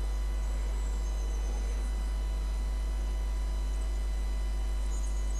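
Steady low electrical mains hum with faint steady high tones above it, unchanging throughout.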